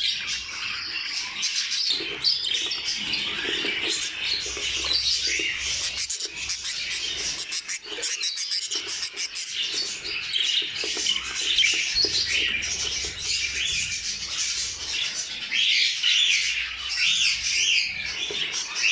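Budgerigars chirping and chattering in a nest box, a dense run of rapid high chirps that grows louder over the last few seconds.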